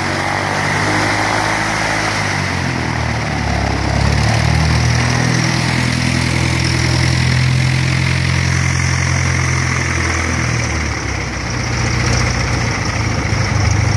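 Cessna light plane's piston engine and propeller running at low taxi power as it taxis in and turns, the engine note stepping up a few seconds in and easing back down about eleven seconds in.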